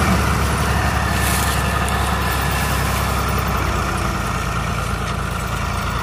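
Diesel farm tractor engines running steadily with a low, even rumble.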